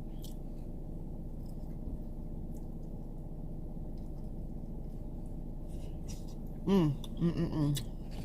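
Steady low hum of a car interior, with a few faint clicks from eating, and a short hummed or spoken voice sound near the end.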